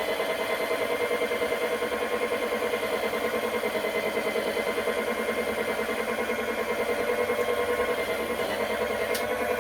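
Panasonic cordless wet-mop cleaner's motor running steadily while mopping: an even hum with a fast, regular pulse.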